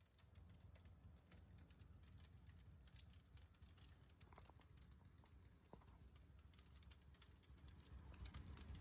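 Near silence: a faint low hum with a few scattered soft clicks, which grow a little more frequent near the end.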